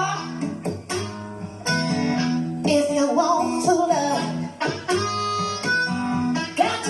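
Music played back through a 12-inch mid-range speaker under a sound test: held bass notes under a bending lead melody.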